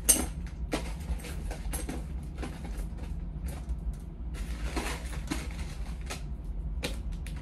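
Costume jewelry being handled: beads and chain clicking and rattling in irregular small clicks, with a sharper click right at the start, over a steady low hum.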